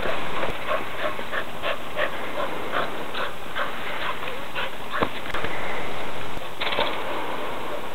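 Border collie panting quickly and steadily, about three breaths a second, out of breath from chasing a ball. A single sharp knock comes about five seconds in.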